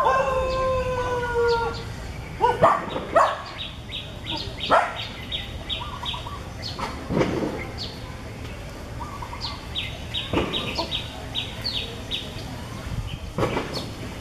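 Birds calling: a long drawn-out falling call trails off in the first two seconds, then two runs of quick, high, repeated chirps. A few sharp snaps or knocks come every couple of seconds.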